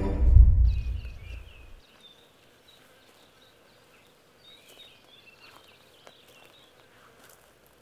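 A tense film score ends about half a second in on a deep boom, whose low rumble dies away within two seconds. Faint bush ambience follows, with small birds chirping in short, quick twitters.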